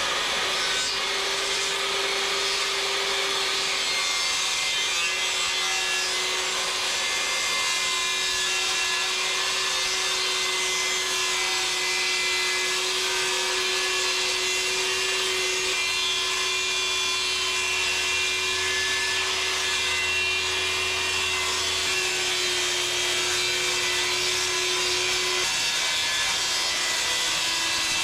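Power tool running steadily while cutting, a constant whine over an even rasping hiss.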